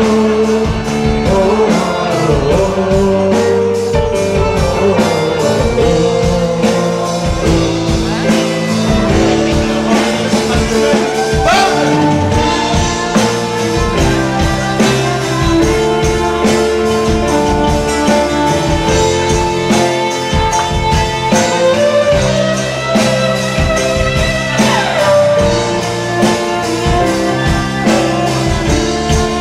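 Live folk-rock band playing an instrumental break: strummed acoustic guitar and bass under a violin melody, over a steady beat. The violin makes one rising slide a little before halfway and one falling slide later on.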